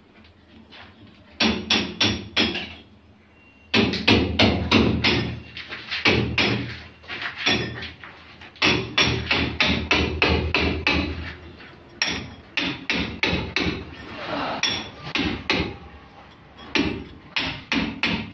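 Rapid hammer blows in bursts of about four strikes a second, with short pauses between bursts.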